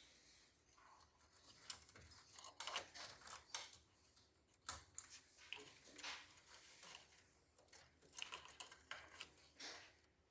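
Faint, scattered clicks and rustles of small parts and wiring being handled and fitted by hand.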